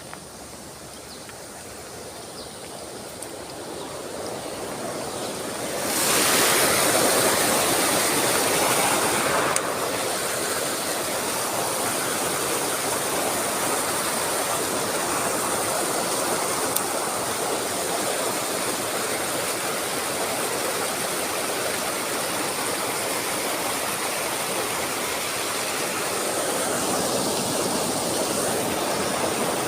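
Rushing stream water, a steady wash that swells over the first six seconds, is loudest for a few seconds, then settles a little and runs on.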